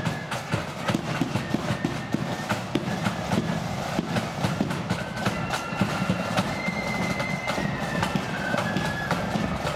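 Marching flute band playing: side drums beat out a quick march rhythm, and flutes carry a high melody that comes through clearly from about halfway through.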